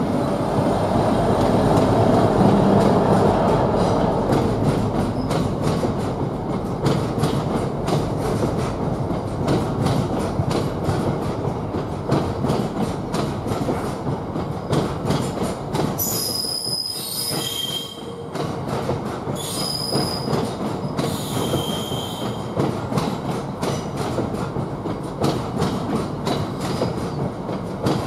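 A heavy freight train of loaded stone wagons rolling past, wheels clicking steadily over rail joints. The Class 60 diesel locomotive's engine rumble is loudest in the first few seconds, then the wagons carry on, with high-pitched wheel squeal in two spells around the middle.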